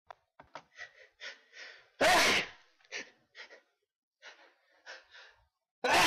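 A person's hitching breaths building to sneezes: a run of short catching gasps, a loud sneeze about two seconds in, more short gasps, then a second loud sneeze right at the end.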